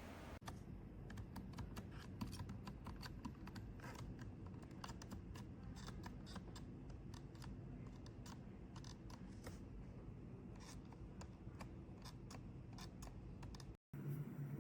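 Keys clicking in quick, irregular succession, like typing, faint, with a brief gap near the end.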